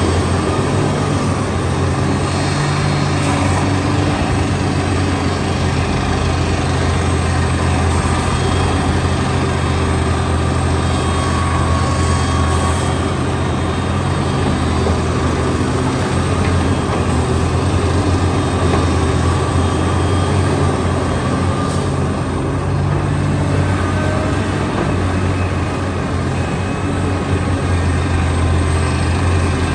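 Heavy diesel engine of construction machinery running steadily with a deep, even hum.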